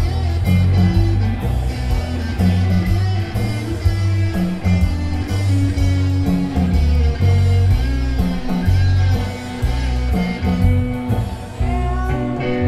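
Rock band playing live, with electric guitar over a bass line and drums. No singing.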